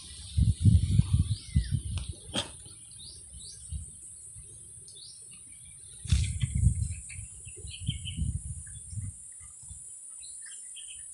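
Small birds chirping in short calls over a steady high-pitched insect drone. Bursts of low rumbling on the microphone come about half a second in and again from about six seconds in, and are the loudest sound.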